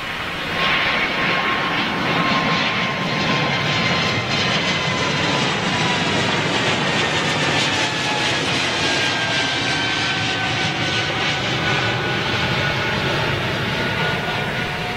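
Swiss Airbus A220 climbing out after take-off, its Pratt & Whitney PW1500G geared turbofans at take-off thrust: a steady, loud jet rush with thin whining tones that slowly fall in pitch as it passes.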